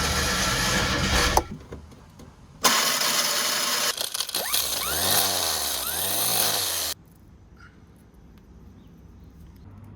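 Classic Fiat 500's two-cylinder engine running loudly in two short edited bursts, its pitch rising and falling as it is revved in the second burst, which cuts off suddenly about seven seconds in.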